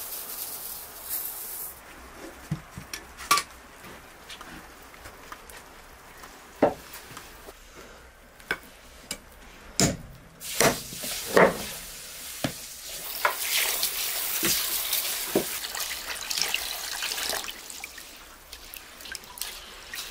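Water poured into a large metal bowl at the start, then a meat cleaver chopping raw lamb on a wooden board in about ten sharp, irregularly spaced blows. In the second half, water sloshes as rice is washed by hand in the metal bowl.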